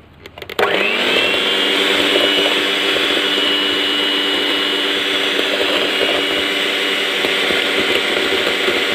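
Electric hand mixer switched on about half a second in, its motor spinning up quickly and then running at a steady whine as its wire beaters whip egg whites with sugar.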